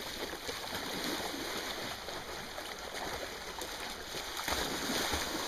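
Steady rush of flowing river water, with two low thumps near the end.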